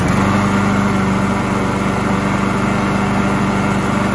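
Briggs & Stratton Quantum single-cylinder lawn mower engine running steadily at an even, unchanging speed. With the mouse nest cleared from its air-vane governor, it now runs well and holds its speed.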